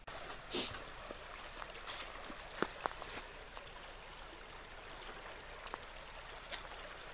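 Shallow woodland stream running and trickling over rocks, with a few brief rustles scattered through it.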